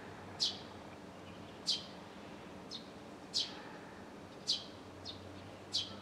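Eurasian tree sparrow chirping: short, high calls that fall sharply in pitch, repeated about once a second, some of them fainter. A steady low hum lies underneath.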